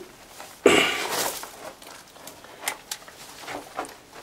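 Footsteps crunching and scuffing on broken rubble and debris underfoot, with one louder, longer scrape about a second in.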